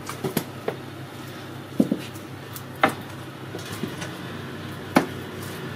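Scattered sharp knocks and clicks, four or five in all, over a faint steady low hum.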